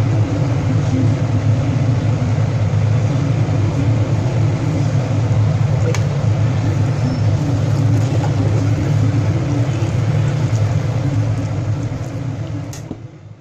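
Steady low rumble of a gas stove burner under a large pan of simmering soup, with a few light clinks of a metal ladle against the pan. The sound fades out near the end.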